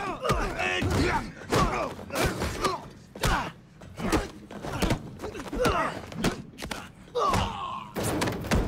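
Hand-to-hand fight sound effects: a series of punch and kick thuds landing, roughly one or two a second, mixed with the fighters' short grunts and groans of effort.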